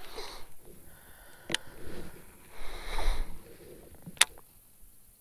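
A deer blowing at the angler: two forceful, breathy snorts, one at the start and a stronger one about three seconds in, the alarm call a deer gives when it spots an intruder. Two sharp clicks fall between and after them, the second the loudest sound.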